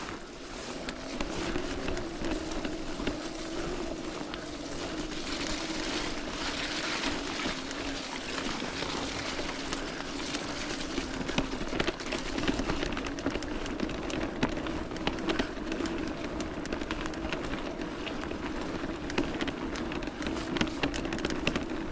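Bafang BBS01 mid-drive e-bike motor whining at a steady, slightly wavering pitch as the bike rolls down a muddy trail. Under it run a hiss of tyres over wet ground and frequent small knocks and rattles from the bike, more of them near the end.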